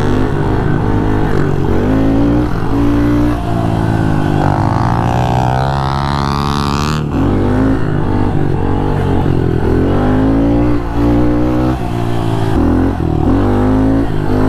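Honda CRF110 pit bike engine revving hard on a wheelie, its pitch rising and falling over and over as the throttle is worked to hold the front wheel up.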